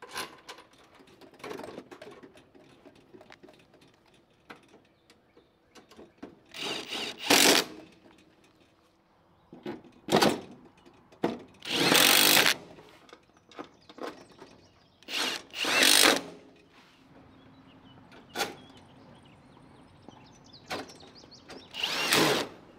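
Cordless drill/driver running in short bursts, several seconds apart, the longest about a second, as it tightens M6 bolts through the steel support bars of a chicken coop frame. Light clicks and knocks of metal parts being handled come between the bursts.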